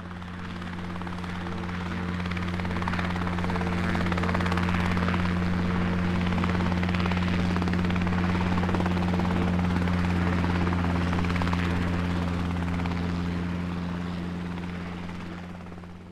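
Helicopter rotor and engine noise, a steady low drone with fast blade chop, fading in over the first few seconds and fading out near the end.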